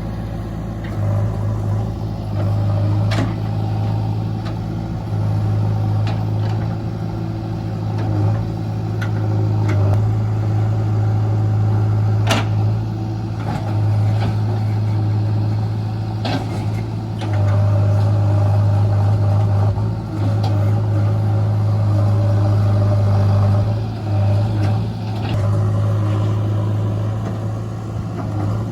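JCB backhoe loader's diesel engine running steadily under work, rising and falling a little in level, with a few sharp metallic clanks now and then.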